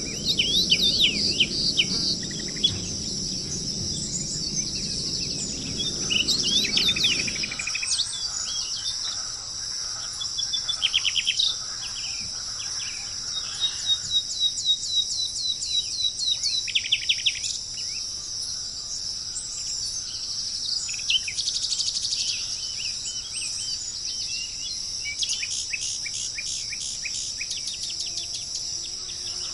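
Small birds singing: scattered chirps, fast trills and runs of quick repeated notes, over a steady high-pitched hiss. A low rumble underneath stops suddenly about seven seconds in.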